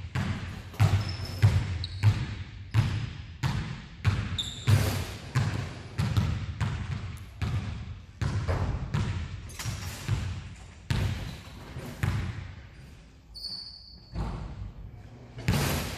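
Basketballs bouncing on a hardwood gym floor, many impacts at about two a second, each ringing briefly in the hall's echo, with a few short high squeaks.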